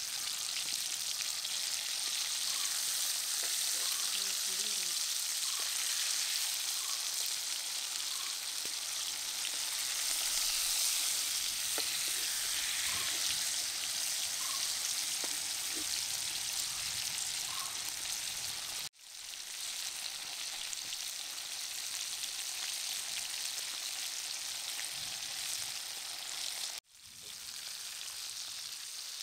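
Marinated pearl spot fish shallow-frying in hot oil in a pan: a steady sizzle. The sizzle breaks off for an instant twice, about two-thirds through and near the end.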